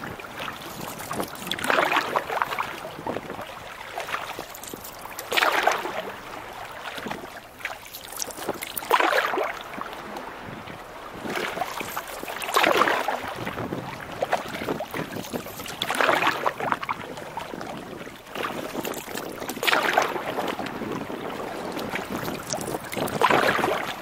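Canoe paddle strokes in choppy water, a swishing surge about every three and a half seconds, with steady water and wind noise between strokes.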